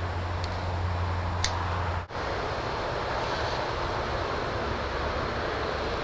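Steady rushing wind noise on the microphone, with a low steady hum for the first two seconds and a brief dropout about two seconds in.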